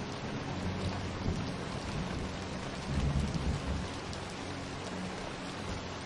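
Steady rain falling, with a low rumble of thunder about three seconds in.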